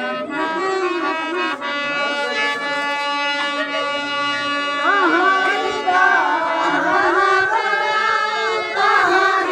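Santali folk music: a keyboard instrument holds steady chords over a hand-played barrel drum, and singing voices come in about five seconds in.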